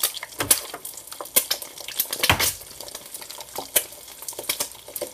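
Hot cooking oil crackling and spitting in a frying pan, with a scatter of sharp pops over a steady hiss, and one louder knock a little over two seconds in.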